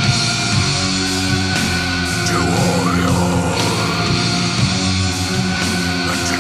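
Doom/death metal recording: heavy guitar chords held long and slow, with a melody line sliding up and then down in pitch about halfway through.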